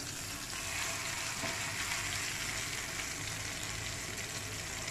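Marinated chicken tikka leg piece frying in shallow ghee in a frying pan: a steady sizzle.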